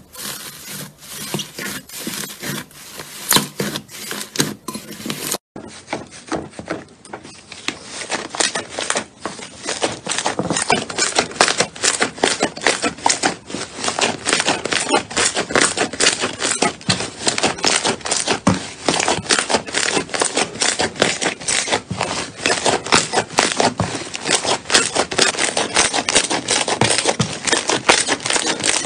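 Slime being squished and pressed, giving a dense run of sticky crackling and popping clicks. The clip changes about five seconds in, and the clicking then grows denser and louder.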